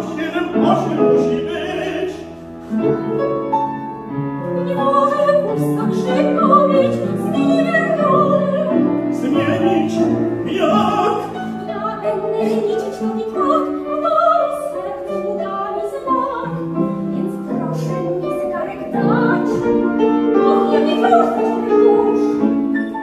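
Operatic singing with grand piano accompaniment; a soprano's voice with vibrato is the most prominent.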